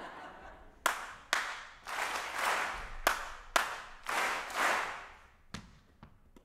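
Call-and-response hand clapping: a single performer's sharp claps, two at a time, each answered by a theatre audience clapping back as a blurred burst of many hands. One more single clap comes near the end.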